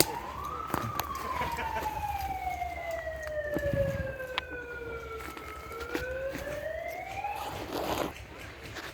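A wailing siren: its pitch rises, sinks slowly over several seconds, climbs again and then cuts off near the end. Scattered sharp clicks sound over it.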